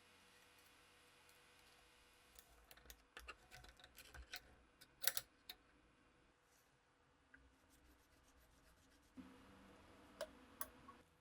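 Irregular small sharp clicks and taps of the restored Webley & Scott revolver's metal parts being handled, bunched together a few seconds in and loudest about halfway through. A faint low hum comes in near the end, with two more clicks.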